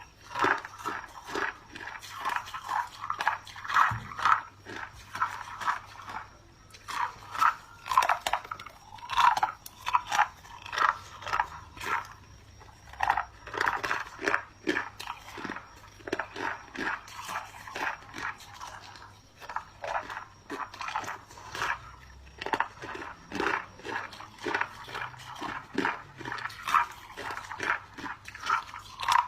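Close-up crunching of clear ice chunks being bitten and chewed: rapid, sharp cracks in bursts of chewing with short lulls between.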